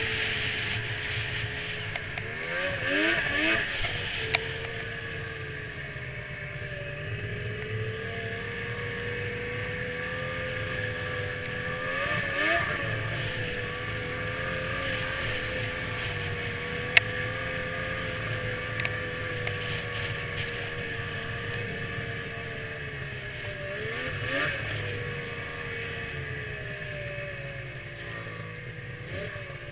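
2002 Yamaha SX Viper snowmobile's three-cylinder two-stroke engine running at a steady cruising pitch as the sled travels over snow. The engine briefly revs up and back down four times: about three seconds in, around twelve seconds, around twenty-four seconds and at the very end. Two sharp ticks are heard, near four and seventeen seconds in.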